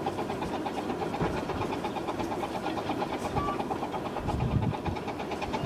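Distant 15-inch-gauge steam locomotive of the Romney, Hythe and Dymchurch Railway running steadily with its train, heard from high above. Wind rumbles on the microphone in gusts about four seconds in.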